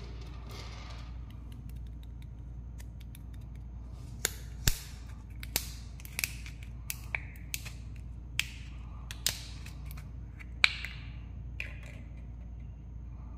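Sharp plastic clicks and snaps, about a dozen, from about four seconds in until near the end, as a plastic eyeball-shaped candy container is twisted and pried open by hand, over a steady low hum.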